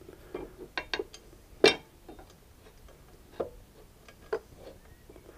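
Scattered small metallic clicks and knocks as a metal pannier mounting frame is handled and fitted against a motorcycle's rear footrest mount, the loudest knock just under two seconds in.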